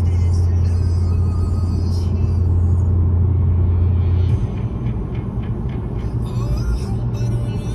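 Steady road rumble of a car driving, heard inside the cabin, with background music playing over it.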